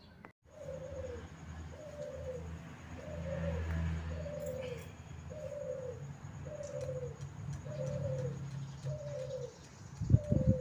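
A dove or pigeon cooing: one short falling coo repeated about nine times, roughly once a second, over a low steady hum. A few sharp knocks come near the end.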